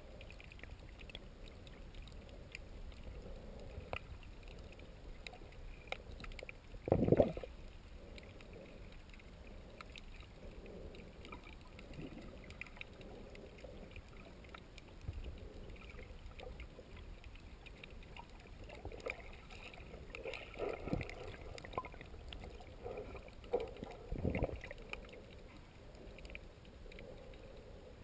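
Underwater ambience picked up by a camera held below the surface while snorkeling: a steady muffled water noise with faint scattered clicks. A few louder muffled surges break through, the loudest about seven seconds in and smaller ones near twenty and twenty-four seconds.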